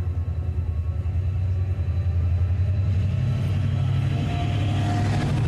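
Class 68 diesel locomotive passing at close range, its engine a low, steady drone that grows louder, with a brief higher whine about four and a half seconds in.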